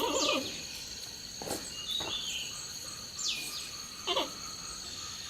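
Outdoor ambience of steady, high-pitched insect trilling, with two quick falling bird-like calls, one just after the start and one about three seconds in, plus a few short lower sounds.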